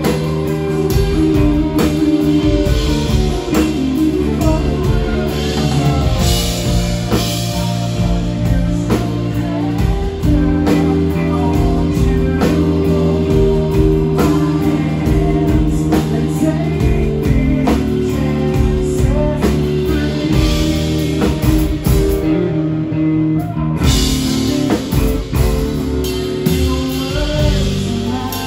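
Live rock band playing a song with drums, bass guitar, electric and acoustic guitars and keyboard, with a male lead vocal.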